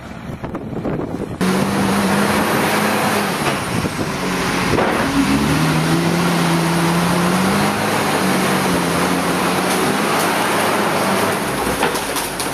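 JCB 414S wheel loader's diesel engine running under load while it scrapes and pushes manure slurry, its pitch rising and falling as the revs change. It starts abruptly about a second and a half in.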